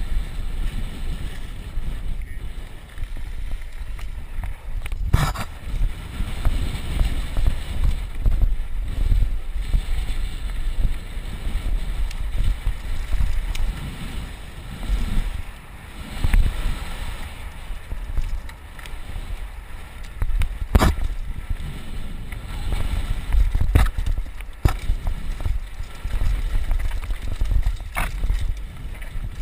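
Wind buffeting a helmet-mounted GoPro over the rumble of a mountain bike rolling fast down a dirt trail, with a few sharp knocks from the bike over bumps.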